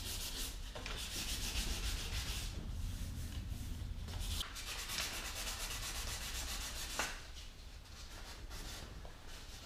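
Hand-sanding a painted plastic car bumper cover with 320-grit sandpaper, in quick back-and-forth strokes that rasp on the paint, taking down an old paint touch-up. The strokes grow quieter about seven seconds in.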